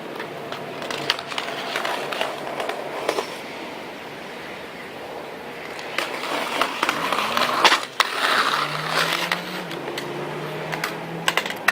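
Skateboard wheels rolling on pavement, with several sharp clacks of the board popping and landing; the loudest snap comes about two-thirds of the way through.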